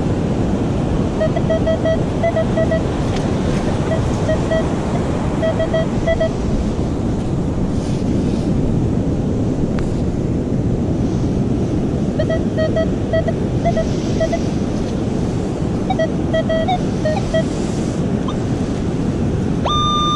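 Surf and wind roar steadily. Over them a Minelab metal detector gives clusters of short, low-pitched beeps as its coil is swept over a target reading 20. A steady, higher tone comes on near the end.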